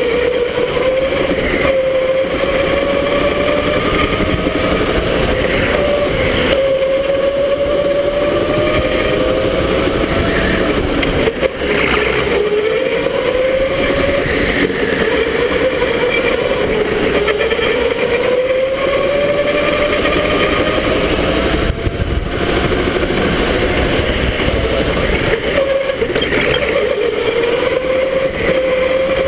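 Electric go-kart motor whining, its pitch rising as the kart speeds up and dropping as it slows, again and again through the lap, over a steady rushing noise.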